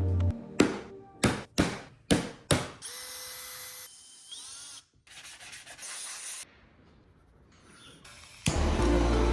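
Woodworking shop tool sounds: five sharp strikes in quick succession, then a short steady power-tool run and a brief rasping, rubbing sound. Music comes back in near the end.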